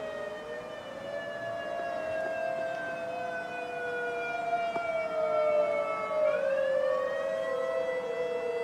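Tornado warning sirens on test wailing together with a Whelen ESC-864 electronic siren played through a single speaker driver. The tones are out of step: several pitches fall slowly while another sweeps up sharply about six seconds in.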